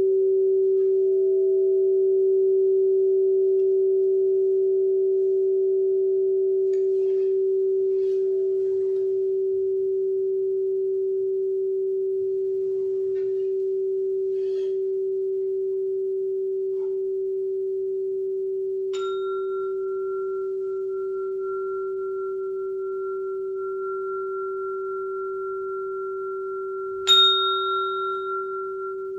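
Struck sound-healing instruments (singing bowls or tuning forks) ringing. A low pure tone rings on and fades slowly. About two-thirds in, a higher tone is struck, and it is struck again, louder, near the end.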